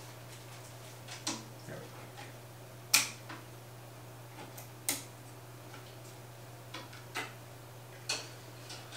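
Scattered sharp clicks and clacks of small mounting screws and the plastic pump head of an EVGA CLC 120 AIO liquid cooler being handled while the wrong screws are swapped out. There are about half a dozen separate clicks, and the loudest comes about three seconds in.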